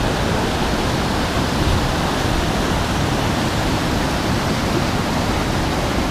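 Whitewater rapids of a large river rushing over and around boulders: a loud, steady rush of water.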